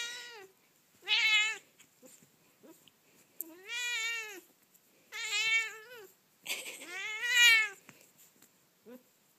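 House cat meowing repeatedly: about five meows, each rising then falling in pitch, spaced a second or so apart. The longest and loudest comes about seven seconds in.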